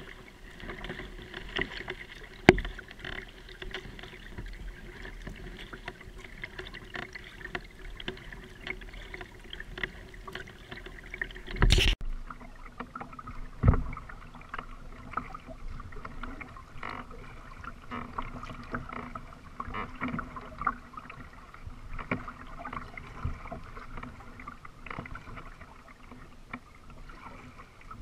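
Kayak being paddled: water splashing and trickling from the paddle strokes, with a few sharper knocks, the loudest about 2.5 s in and around 12 and 14 s in.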